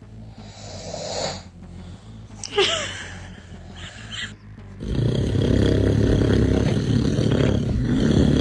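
A man snoring: a few short, softer sounds in the first half, then a long, loud snore from about five seconds in.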